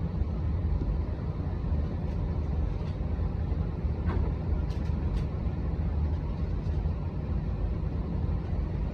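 Steady low rumble of the Saphir Odoriko, a JR East E261 series electric limited express train, with a couple of faint clicks about halfway through.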